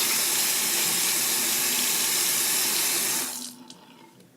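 Water running steadily from a sink tap, shut off about three seconds in.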